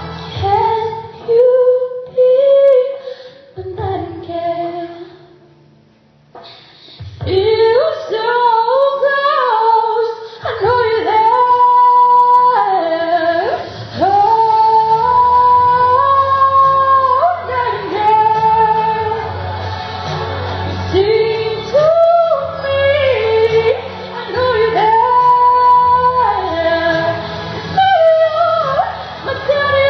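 A young female voice sings a pop ballad with long held and sliding notes over musical accompaniment, pausing briefly about six seconds in.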